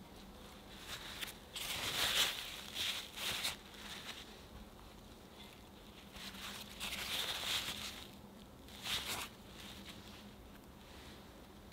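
Paper towel rustling and crinkling as whole strawberries are patted dry, in two bursts of about two seconds each.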